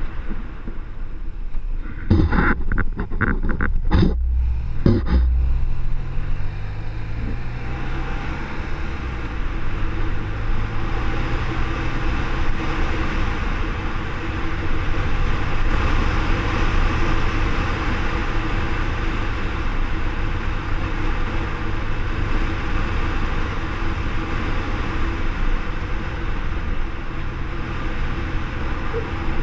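BMW R1200R boxer-twin engine, its note rising as the bike accelerates and then running steady at cruising speed, under heavy wind rush over the microphone and road noise. A cluster of sharp knocks sounds a couple of seconds in.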